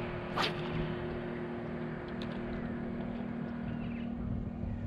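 Electric trolling motor humming steadily on a small boat, with wind and water noise; one pitch of the hum drops out about three seconds in. About half a second in, a single quick swish of a fishing rod being cast.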